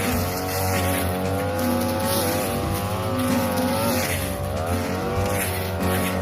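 A 42cc brush cutter engine running at high speed while its blade cuts tall, flattened grass. The pitch wavers with the load and dips briefly about four seconds in, then picks up again.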